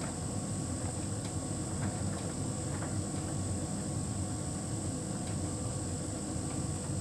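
Hotpoint heat pump tumble dryer running: a steady low rumble from the turning drum and fan, with a faint steady high tone and occasional light ticks.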